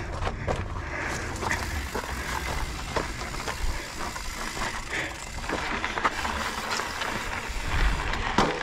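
Mountain bike being handled on a rocky trail: scattered clicks, knocks and rattles over a steady low rumble.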